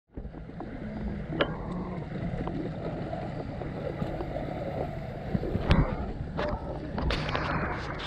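Water running and churning in a water slide's shallow start pool, a steady rushing wash with a low rumble, with a few sharp knocks and bumps about a second and a half in and again near the end.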